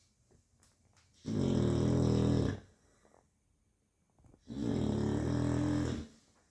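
Chow Chow dog snoring in its sleep: two loud, buzzing snores about three seconds apart, each lasting over a second, with quiet pauses between them.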